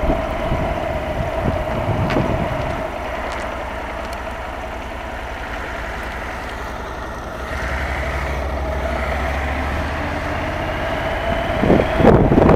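Honda motorcycle engine running at low speed, its low note picking up about two-thirds of the way in as it pulls away, then wind rushing over the microphone near the end as it gathers speed.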